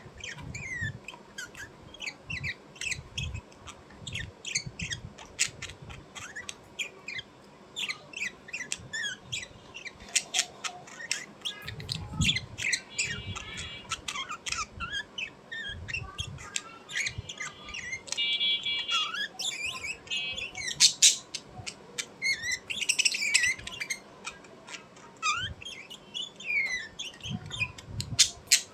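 Small birds chirping and squeaking in quick, irregular calls, with a few harsher buzzy squawks near the middle and occasional soft low thumps.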